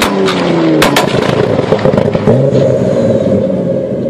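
BMW E30's engine revved hard while standing still, with several sharp exhaust pops and cracks in the first second, then held at steady high revs through a loud, free-flowing exhaust.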